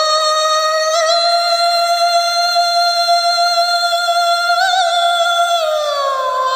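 A woman's solo voice, unaccompanied, singing one long high note with small turns about a second in and near five seconds, then sliding down to a lower note near the end. This is the opening of a Tamil film song.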